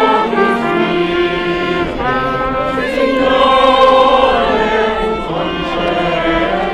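An amateur choir singing held notes together, accompanied by violin and trumpet.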